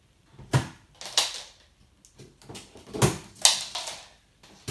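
A large cardboard box being opened by hand: a handful of short, sharp scrapes and rips of cardboard and packing material.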